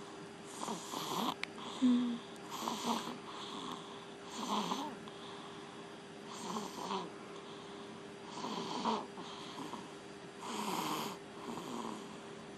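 A sleeper snoring, about one snore every two seconds; a short pitched snort about two seconds in is the loudest. A faint steady hum runs underneath.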